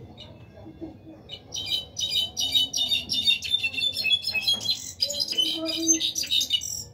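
Caged brown-backed solitaire (Mexican jilguero) singing: a long, rapid run of high notes that starts just over a second in and goes on with a short break near the middle.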